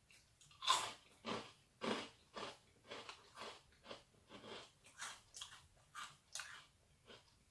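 A person chewing a crunchy wasabi snack mix cracker close to the microphone: about two crunches a second, the first bites loudest and the later chews softer.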